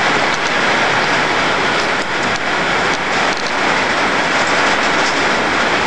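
Steady rain falling: a dense, even hiss with occasional faint drop ticks.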